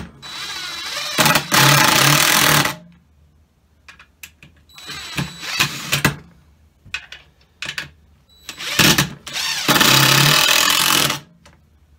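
Cordless drill/driver running under load as it drives a drywall screw into the old wood of a beehive box, in two runs of about two seconds each, one near the start and one about nine seconds in, with small clicks of handling between them.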